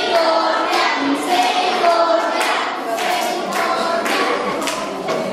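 A group of children singing together, with some clapping.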